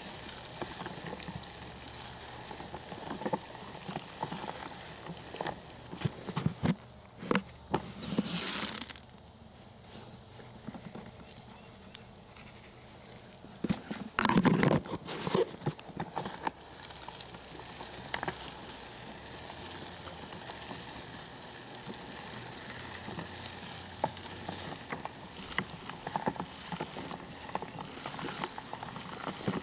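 Handheld broadcast spreader throwing fertilizer granules across the lawn, a faint pattering with scattered small ticks, louder for a moment about seven seconds in and again about fourteen seconds in.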